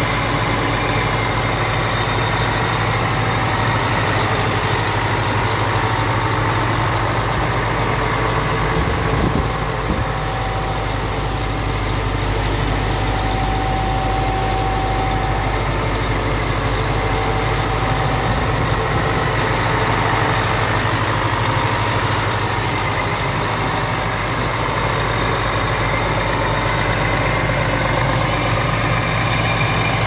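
2005 Claas Jaguar 870 self-propelled forage harvester's diesel engine idling steadily.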